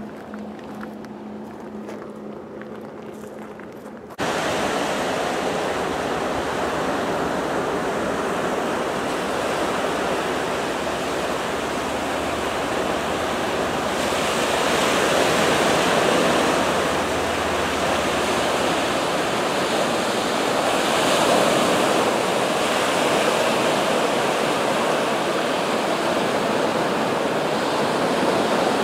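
Atlantic surf: small waves breaking and foam washing up a flat sandy beach, a loud, steady rushing that swells now and then. For the first four seconds there is only a quieter background with a low steady hum, then the surf cuts in abruptly.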